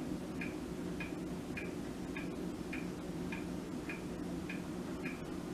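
Clock ticking evenly, a little under two ticks a second, over a low steady hum.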